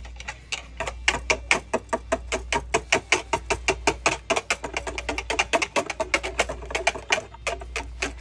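Wire balloon whisk beating quickly against the side of a mixing bowl while dissolving gelatine and sugar in hot water, making a fast, even clicking of about five or six strokes a second.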